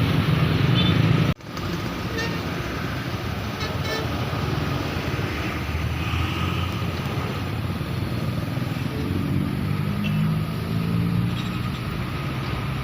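Road traffic, cars and motorbikes, passing steadily, with a faint steady high tone throughout. A louder low rumble cuts off abruptly about a second and a half in.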